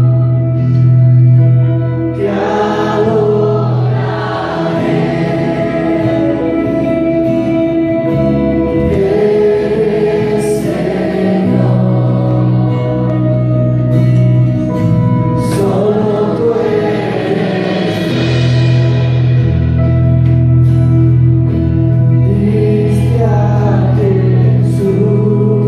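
Worship band and group of singers performing a praise song: sung phrases over sustained chords and a steady bass.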